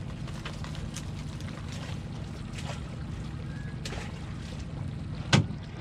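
Mesh crab trap being handled and shaken out over the water: light scattered clicks and rattles over a steady low hum, with one sharp knock near the end.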